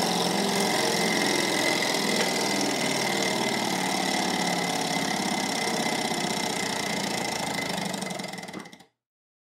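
Small twin-cylinder Stirling engine running fast, its pistons and linkage clattering rapidly with a steady high whine as it drives a small generator. The sound fades quickly and stops near the end.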